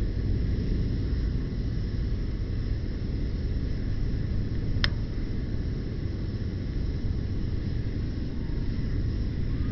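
Campfire: a steady low rumble with one sharp pop of burning wood about five seconds in.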